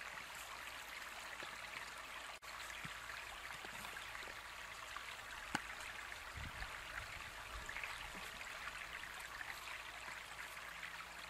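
Creek water running steadily, with one sharp click about halfway through and a few soft low knocks just after as driftwood sticks are set against a teepee fire lay.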